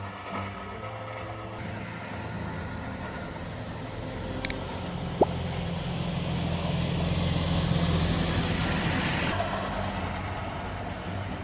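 A vehicle engine running steadily, growing louder toward the middle, with a hiss that stops abruptly about nine seconds in and a single short click about five seconds in.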